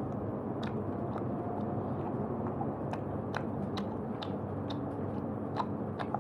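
Home barbecue meal: irregular sharp clicks and crackles scattered over a steady low hum.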